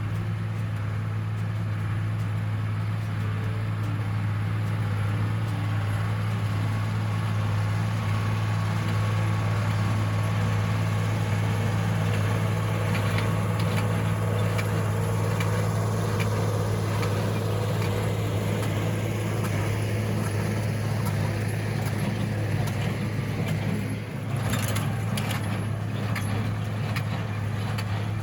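Cockshutt 1650 tractor engine running at a steady speed, with a constant low drone. A brief dip comes near the end, followed by some rattling and clatter.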